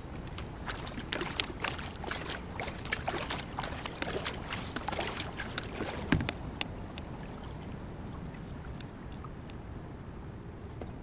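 Kayak paddling: water splashing and dripping off the paddle and lapping against the kayak's hull, in many short splashes. The splashing thins out after about seven seconds, leaving a steady low rush of water.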